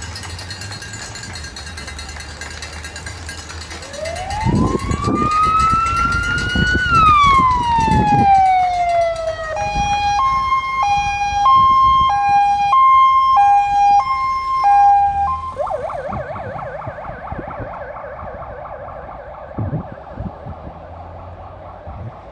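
Electronic siren of a race escort vehicle running through its modes: one long rising and falling wail, then a two-tone hi-lo alternation, then a fast warbling yelp.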